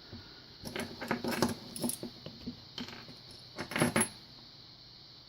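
Small metal lock pins and parts clinking and rattling as they are handled, in light clicks through the first half and a short louder cluster about four seconds in.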